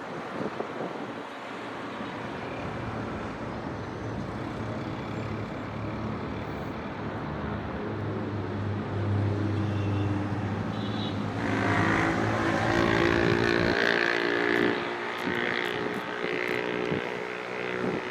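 City traffic: a steady wash of road noise, with a vehicle's engine rising out of it about halfway through and loudest about two-thirds of the way in before easing off.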